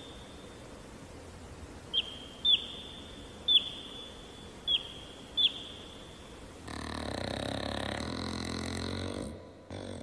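Domestic chick peeping: five short, high peeps, each dropping at the end, spread over the first five or so seconds. Then, about two-thirds of the way in, a louder low groan lasts about two and a half seconds.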